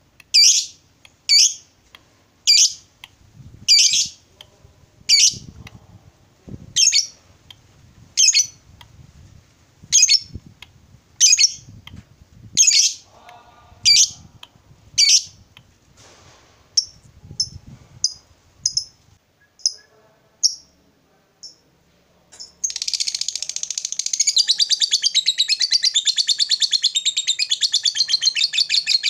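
Lovebird giving sharp, high single calls about every second and a half, then shorter, softer calls. About two-thirds of the way through it breaks into a long, fast, unbroken chattering trill, the prized 'ngekek'.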